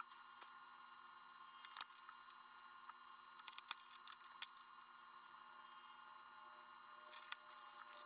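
Near silence: a faint steady room hum, with a few soft clicks and rustles from gloved hands pressing a vinyl decal and its transfer paper onto the model's tail.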